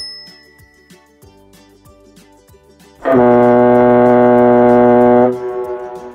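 Faint background music, then about three seconds in a loud, deep, steady horn blast held for about two seconds before it stops.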